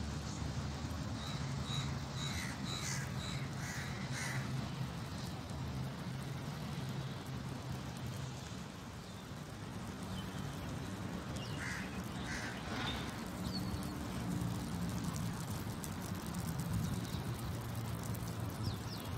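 Crows cawing in two short series of repeated calls, the first about two seconds in and the second a little past the middle, over a steady low hum.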